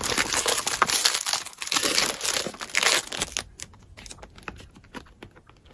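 Paper packing crinkling and rustling as a cardboard product box is pulled out of a gift box filled with shredded paper filler. It dies down about three seconds in, leaving a few light taps and clicks from handling the carton.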